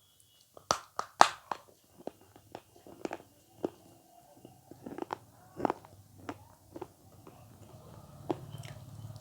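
Close-miked eating of avocado: a few sharp, loud bites about a second in, then quieter chewing with scattered clicks.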